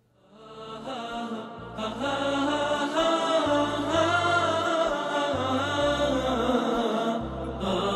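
Vocal nasheed, an Islamic devotional song: voices singing a melody over a stepping low bass line, fading in over the first second.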